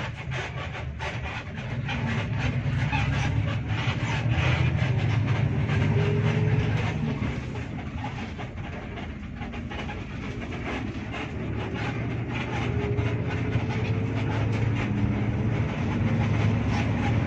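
Hino RK8 R260 coach's rear-mounted six-cylinder diesel heard from inside the passenger cabin while under way, a low drone whose revs rise and fall as the bus accelerates. Road noise and light interior rattles run through it.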